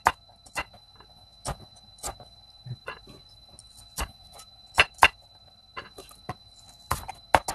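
Crinkle-cut knife slicing through potato and knocking on a plastic cutting board: a dozen or so sharp, irregular knocks, a little under two a second, some in quick pairs.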